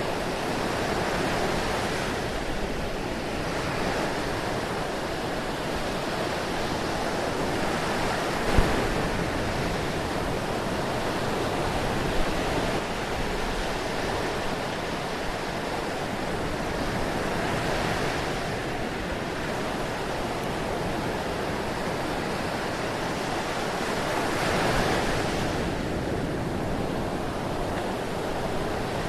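Ocean surf: a steady rush of breaking waves that swells and eases every several seconds. Two brief sharp pops stand out, one about a third of the way in and another a few seconds later.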